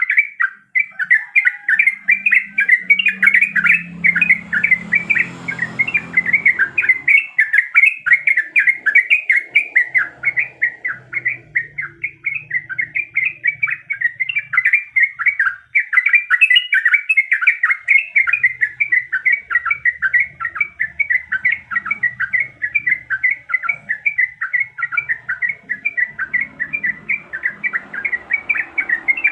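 Yellow-vented bulbul (trucuk) singing a long, unbroken run of quick chattering notes.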